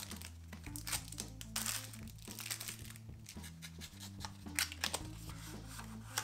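Cellophane wrapper and paper seal of a playing-card deck crinkling and tearing as the deck is unwrapped, in several short bursts, over background jazz music.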